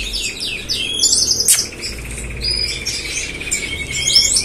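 Small caged songbirds chirping and singing, with fast trills and quick rising and falling notes, then one long even trill through the second half. A single sharp click about a second and a half in.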